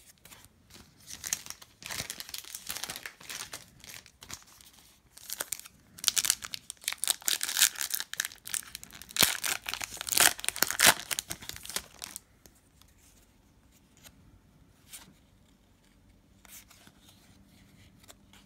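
Trading card pack wrapper being torn open and crinkled, in crackling bursts for about ten seconds, then quieter light rustles and clicks as the cards are handled.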